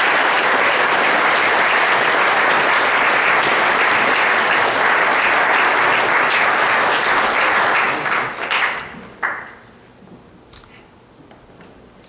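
Congregation applauding: steady, dense clapping that holds for about eight seconds, then dies away.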